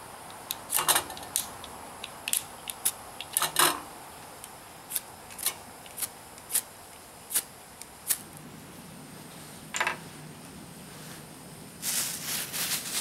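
Camping gear being handled and set down on a wooden table: a scatter of sharp clicks and metal clinks as a canister stove's pot-support arms are folded out and pieces are put in place, over a steady background hiss. A short burst of crackly rustling comes near the end.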